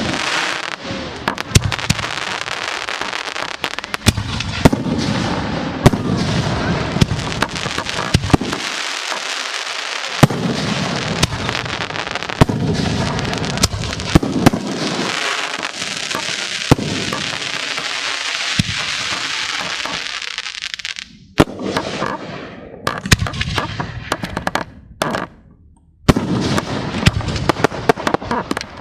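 Aerial firework shells bursting in rapid succession: many sharp bangs over a dense, continuous crackling wash, with brief lulls about three-quarters of the way through and again near the end.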